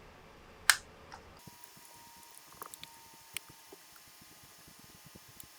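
Small-tool handling noises on a liquid CPU cooler being taken apart: one sharp click a little under a second in, then scattered light clicks and taps as a screwdriver bit is worked on the screws.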